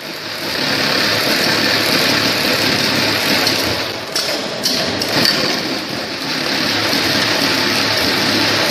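GS017K popcorn filling line running: the volumetric cup filler and can conveyor make a steady mechanical whir and rattle, with a few sharp clicks around four to five seconds in.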